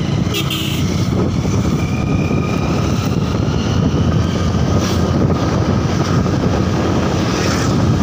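Motorcycle riding at road speed: the engine runs steadily under a continuous rush of wind buffeting the microphone on the moving bike.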